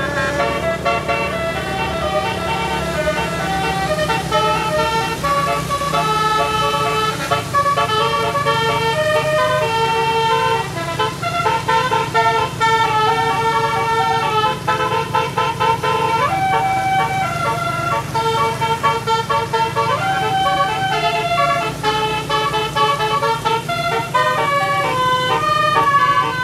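Tour bus telolet horn, a set of tuned air-horn trumpets, playing a long unbroken melody of held notes that step up and down in pitch, each lasting from a fraction of a second to about a second. The bus engine runs underneath as a steady low hum.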